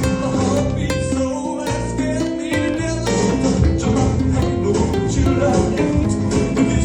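Lively music playing, with guitar and a steady beat.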